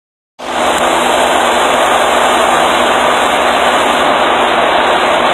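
A steady, loud rushing noise that begins about half a second in and holds even, with no clear rhythm or tone.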